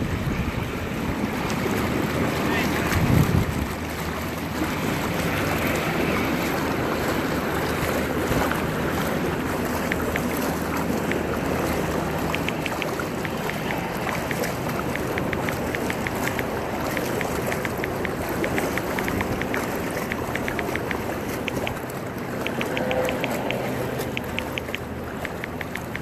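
Floodwater sloshing and splashing as people wade through it waist-deep, with wind buffeting the microphone. Through the second half comes a run of light, rapid ticking.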